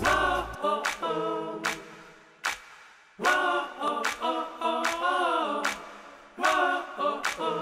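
Outro jingle of voices singing in short phrases that bend up and down in pitch, with sharp percussive hits between the phrases.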